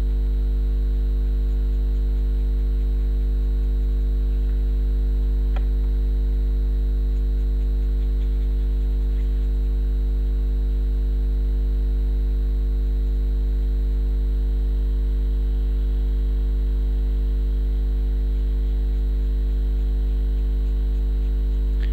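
Steady electrical mains hum: a low, unchanging hum with a stack of fainter higher tones above it, with one faint click about five and a half seconds in.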